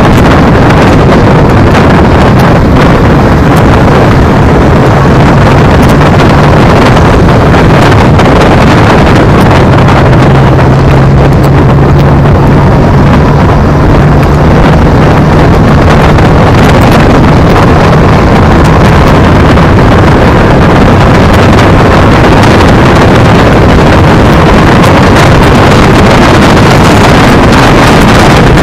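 Heavy wind buffeting the microphone of a camera mounted on a moving electric scooter, loud and steady, with a low hum that comes up for a stretch in the middle.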